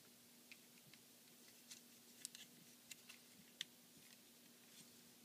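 Faint, scattered small clicks and taps of hard plastic toy parts being handled and pressed into place, over a faint steady hum.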